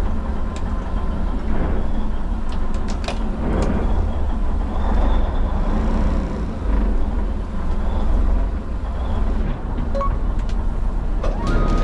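Fishing boat's engine running steadily, a low rumble heard inside the wheelhouse, with scattered light clicks and knocks over it.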